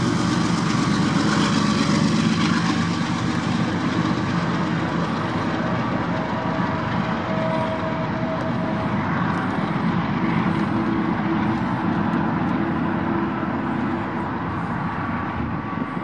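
Freight train rolling away: the rumble of its rear diesel locomotive and the cars on the rails, steady and slowly fading.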